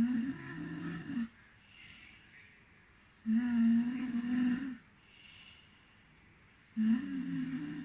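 A person snoring: three loud, droning snores about three and a half seconds apart, each lasting over a second, with a faint breath between them.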